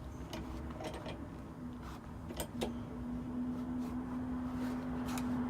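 Scattered sharp clicks and taps of hand tools and hard plastic being handled on the bench, over a steady low hum that sets in about two seconds in.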